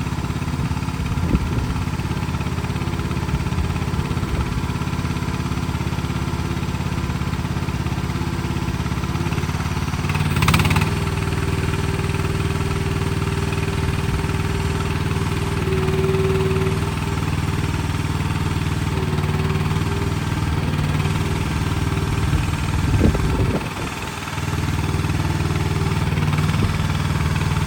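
Mini skid steer engine running steadily under work. About ten seconds in a short rush of noise comes, then a higher steady whine rides over the engine for some ten seconds. A few knocks follow near the end.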